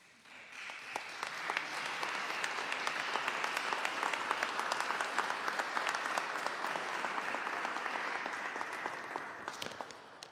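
Audience applauding: many hands clapping, building up over the first second or two, holding steady, then tapering off near the end.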